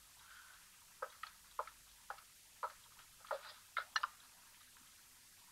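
Serving spoon clinking and scraping against a pan and plate as beans are dished out: a run of about a dozen short clinks over some three seconds, the sharpest just after the middle.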